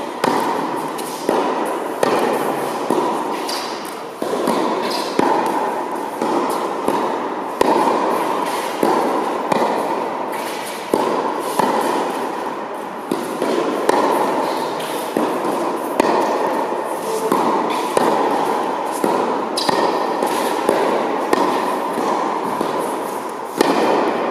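Tennis rally on an indoor hard court: sharp racket strikes and ball bounces about once a second, each ringing out in the echo of a large hall.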